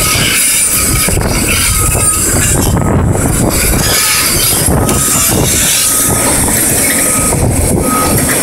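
Caterpillar 329D excavator running loud, machinery noise throughout, with a short high beep about once a second from a warning alarm.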